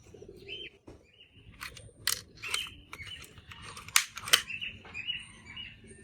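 Toy revolver being fired: a series of sharp clicks or snaps, the loudest two about four seconds in, a third of a second apart.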